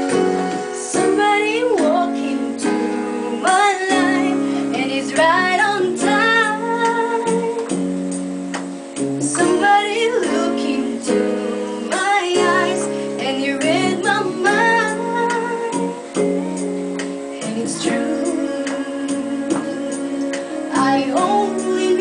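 A woman singing a slow song into a handheld microphone, her voice bending and wavering over sustained keyboard chords.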